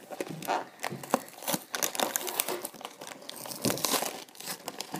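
Small cardboard toy box being pried open and handled by hand: irregular crackling, scraping and some tearing of the cardboard flaps.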